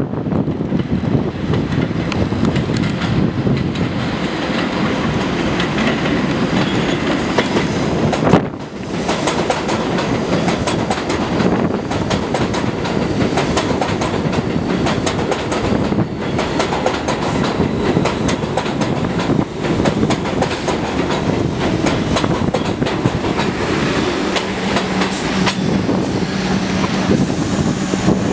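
Bombardier R62A subway train running on elevated steel track: a loud, steady clatter of wheels on rail as the cars pass close by, broken briefly about eight seconds in. Near the end a steady low hum comes in.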